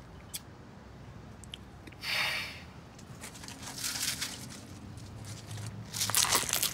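A paper food wrapper crinkling and rustling in bursts as a man eats from it, loudest about two seconds in and again near the end, with chewing and biting in between.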